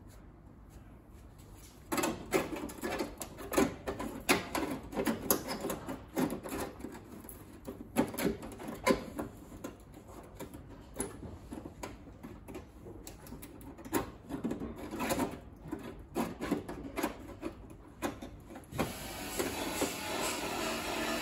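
Rusted-through quarter-panel sheet metal at a car's rear wheel arch being handled and picked apart by gloved hands, giving irregular scraping and crackling clicks that begin after about two seconds of quiet. Near the end a steady machine noise starts up.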